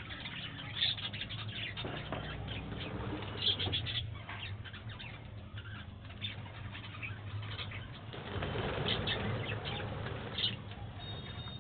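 Budgerigars chirping in an aviary: many short, high chirps scattered throughout, with a rustle of flapping wings about eight seconds in. A steady low hum runs underneath.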